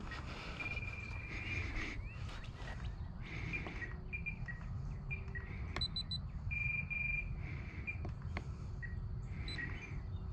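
Outdoor evening ambience: birds chirping in short high notes, with a couple of longer held whistles, over a steady low rumble of wind on the microphone. A few faint clicks.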